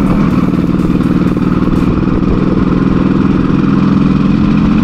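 Modified 1988 Yamaha RX100's two-stroke single-cylinder engine running at a steady speed, with a fast, even exhaust beat.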